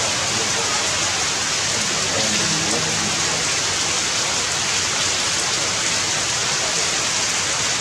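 Heavy rain falling on forest trees and leaves: a steady, even hiss.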